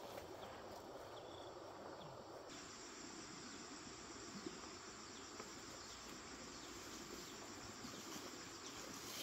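Faint, steady outdoor ambience: an even hiss that turns a notch brighter about two and a half seconds in.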